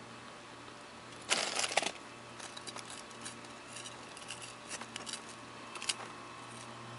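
Frost and ice inside a freezer being scraped and handled: a loud burst of scraping and crunching about a second in, then scattered light clicks and scratches, over a steady low hum.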